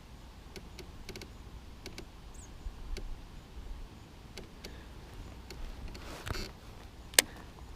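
Faint, scattered small clicks and ticks of fishing gear while a hooked fish is played from a kayak, with a short rustle and then one sharp, louder click near the end.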